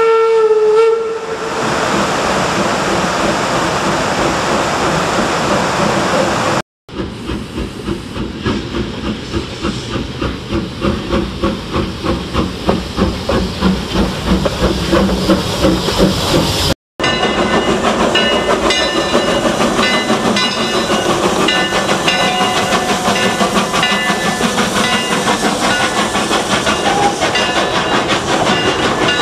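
Narrow-gauge steam locomotive, the 1875 Baldwin 4-4-0 Eureka & Palisade No. 4: its steam whistle blows briefly at the start, then steam hisses. After a cut, the exhaust chuffs come steadily faster and louder as the engine works away. After a second cut the train runs on steadily with intermittent high squeals.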